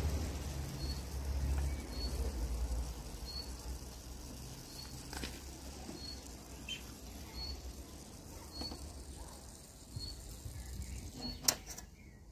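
Outdoor ambience at a charcoal grill: a small bird gives a short high chirp about once a second over a low rumble that fades in the first few seconds. A sharp metal click sounds near the end as the steel skewers are handled.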